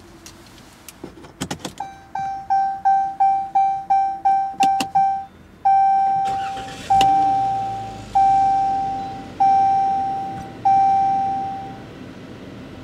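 Jeep Cherokee's dashboard warning chime. A few clicks come first, then a rapid run of about nine short chimes, the key-in-ignition reminder. A short rush and thump follow as the door is opened, then five slower, longer chimes of the door-open warning.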